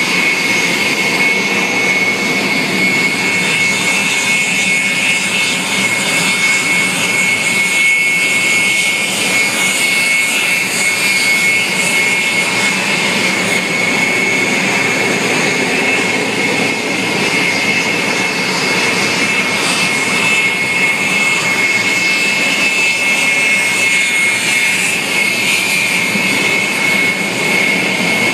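Rolls-Royce Viper turbojets of Aermacchi MB-339 PAN jet trainers taxiing at low power, one aircraft after another. The sound is a steady, loud, high-pitched turbine whine over a rushing exhaust.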